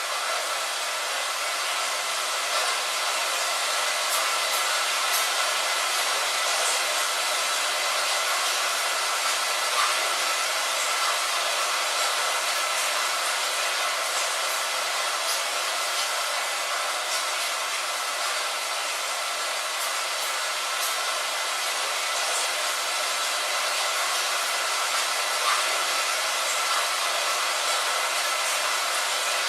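Steady rain on a window: an even, hissy wash with no low rumble, sprinkled with faint scattered drop ticks.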